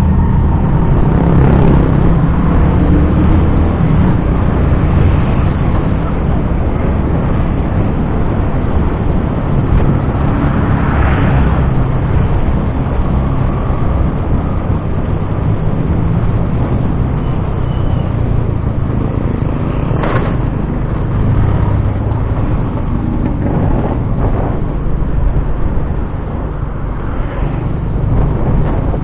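A small motor scooter riding along, its engine running under steady wind and road noise on the camera's microphone, with passing traffic. There is a brief knock about twenty seconds in.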